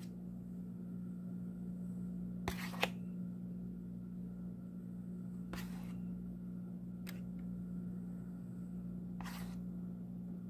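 A steady low hum with a few short clicks and knocks of a metal spoon scooping strawberries in syrup from a plastic plate, two of them close together about two and a half seconds in.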